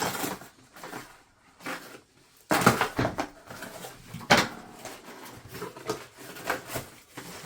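Griddle parts and their packaging being handled during unboxing: irregular rustling with knocks, sharpest about two and a half seconds in and again a couple of seconds later.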